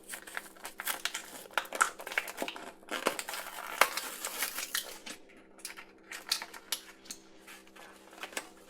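Thin plastic toy packaging crinkling and rustling as it is handled and unwrapped, with many small irregular crackles and clicks, busiest over the first five seconds and sparser after.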